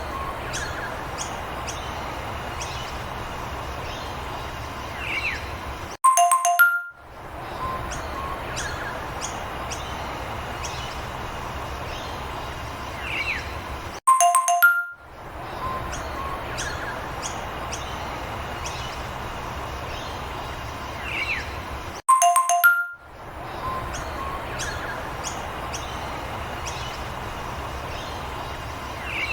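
A repeating background loop for a children's quiz: a steady bed with short bird-like chirps, then a ding-dong chime and a brief silence. The pattern comes round about every eight seconds, four times over.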